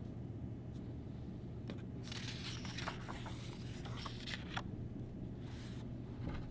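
A picture book's paper page being turned, with soft rustles about two seconds in, then the hand brushing and smoothing the new page flat, over a low steady hum.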